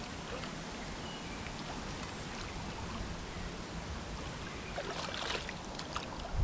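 Steady flowing-water noise of a shallow creek at the bank, with a brief cluster of clicks and rustles about five seconds in.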